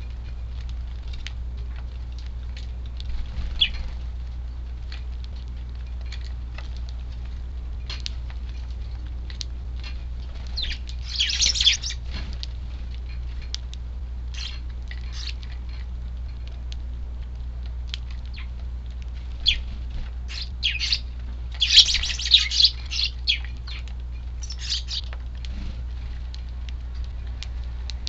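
Eurasian tree sparrows calling, with scattered short clicks and brief chirps. Louder bursts of chirping come about 11 seconds in and again several times between about 20 and 25 seconds. Under them runs a steady low wind rumble.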